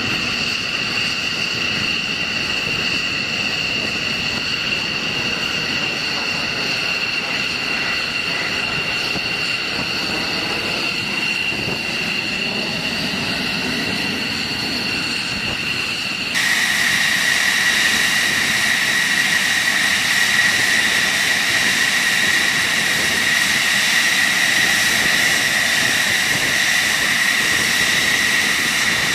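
Fighter jet engine running with a steady high-pitched whine; about sixteen seconds in it cuts suddenly to a louder, lower-pitched whine.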